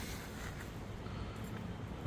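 Faint steady background noise with no distinct event: quiet outdoor ambience.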